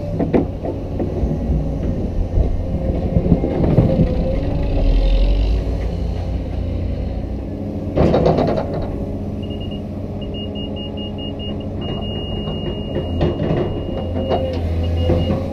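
Cat 320DL excavator's diesel engine running steadily as the bucket digs into clay, with a loud clunk at the start and again about eight seconds in. In the second half the magnetic laser grade receiver on the stick beeps, first in short pulses and then as a long steady tone.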